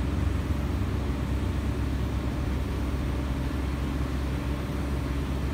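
Crane engine running steadily with a low, even rumble while the crane holds a generator aloft on its hook.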